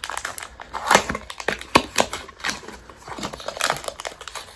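A small cardboard toy box being opened by hand: irregular crackles, taps and rustles of the packaging.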